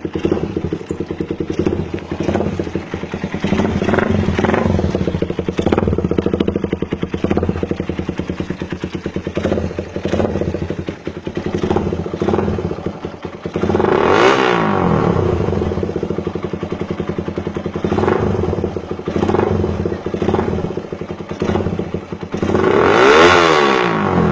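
Suzuki Raider 150 single-cylinder four-stroke engine breathing through an aftermarket high-speed exhaust pipe, idling with many short throttle blips. Twice, about halfway through and again near the end, it is revved hard, the pitch climbing and then falling back to idle.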